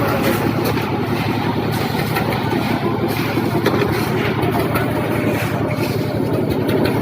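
A motor engine running steadily at a constant speed, with a low hum and a fast, even pulse.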